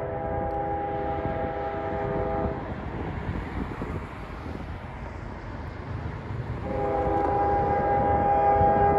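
A train's air horn sounding a chord of several notes: one long blast that stops about two and a half seconds in, then, after a gap of low rumble, another long blast from about seven seconds in, louder.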